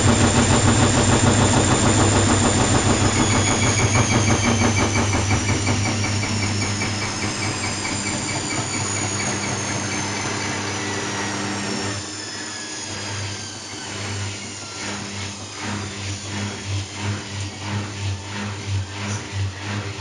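Washing machine running: a motor whine that falls steadily in pitch while the machine's sound eases down, as a spinning drum slowing. About twelve seconds in it changes abruptly to a quieter rhythmic churning at about two pulses a second.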